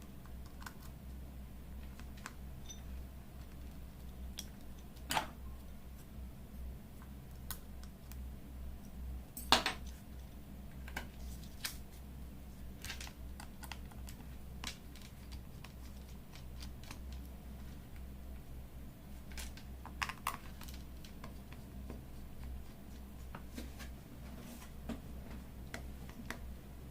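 Irregular small clicks and taps of hand repair tools against a smartphone's internal metal shield, screws and parts as it is taken apart, over a low steady hum. The sharpest tap comes about nine and a half seconds in.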